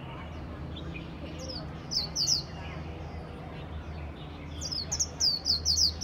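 Japanese white-eye singing: a short burst of quick, high, down-slurred notes about two seconds in, then a longer rapid run of the same notes starting near the end.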